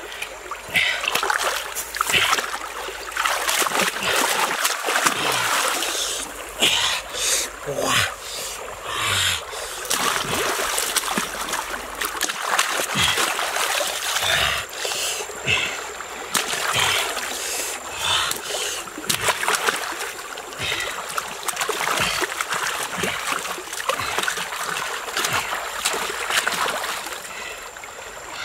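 Stream water splashing and sloshing in irregular bursts as hands scoop and rub water over a pig carcass, rinsing it in the shallows.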